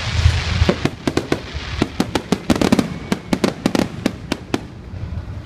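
Aerial fireworks display: a deep boom at the start, then a rapid string of sharp bangs and crackles from bursting shells, thinning out near the end.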